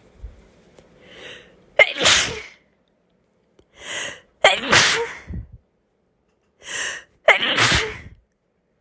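A person sneezing three times, about three seconds apart. Each sneeze comes after a short, sharp breath in.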